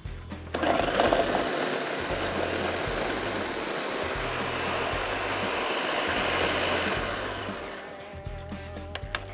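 Countertop blender running steadily at speed, chopping quartered tomatoes with no liquid added into a purée. It starts about half a second in and dies away near the end.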